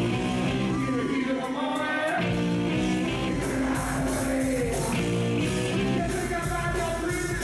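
Live rock band playing electric guitars, bass and drums through stage amplifiers, with a man singing lead.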